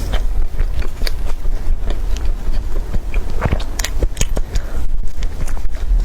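A person eating close to the microphone: irregular crisp crunches and clicks of biting and chewing over a steady low rumble.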